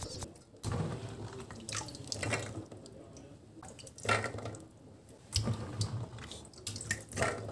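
Water dripping and splashing in a few irregular bursts as wet handfuls of freshly washed green peas are lifted from their rinse water and dropped into a metal pot of dried maize kernels.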